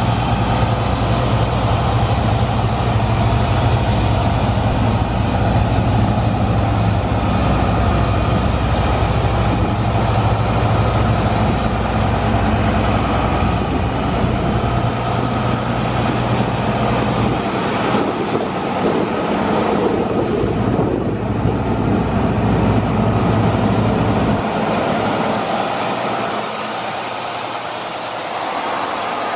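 Cummins QSL9 inline-six diesel of an Ingersoll Rand 12/235 towable screw air compressor running steadily, with a deep hum and a broad hiss of air and cooling fan. The low hum thins out in the last few seconds.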